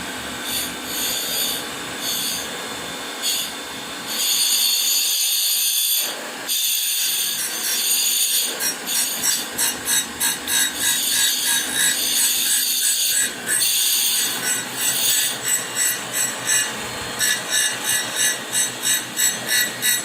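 Surface grinder wheel grinding a slot in a hardened D2 steel flat bar: a high, hissing rasp of abrasive on steel. It grows louder a few seconds in and, in the second half, settles into a regular pulsing, about two a second.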